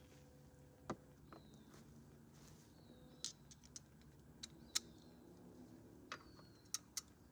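Quiet workshop with a handful of sharp, irregular clicks from a hand wrench on the GY6 scooter's gear case bolts, and faint bird chirps behind.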